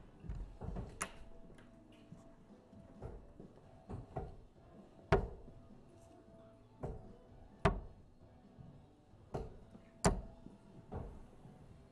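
Steel-tip darts hitting a Winmau Blade 6 bristle dartboard: three sharp hits about two and a half seconds apart, one dart after another. Fainter clicks and knocks come in between, with one about a second in.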